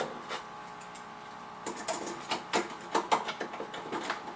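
Irregular light knocks and scrapes of hand work in a freshly bored latch hole in a wooden door, starting about a second and a half in, as the sawdust is cleared out.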